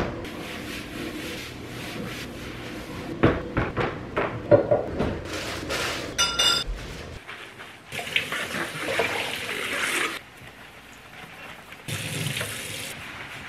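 Washing up in a kitchen: dishes and cutlery clattering, with a short beep about six seconds in, then a kitchen tap running in two spells, the first about two seconds long.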